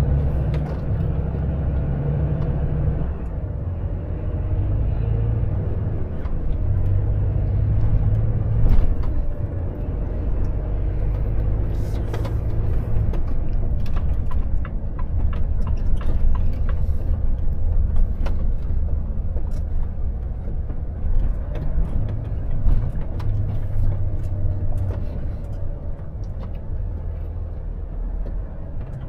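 Volvo FH truck's diesel engine running steadily while driving, with a strong low rumble and short knocks and rattles scattered through, most of them in the middle.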